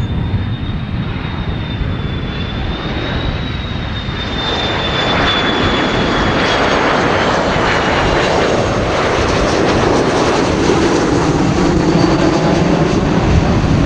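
Jet airliner's engines passing close, a high whine that drifts slightly down in pitch, with the broad engine rumble growing louder about four seconds in and holding.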